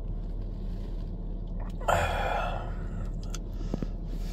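A man's breathy exhale about two seconds in, over a steady low hum, with a few faint clicks.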